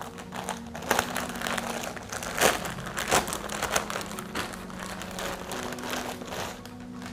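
Clear plastic packet crinkling and rustling as it is opened by hand to unwrap a folded shirt. The crackles are irregular, with the loudest crunches about two and a half and three seconds in.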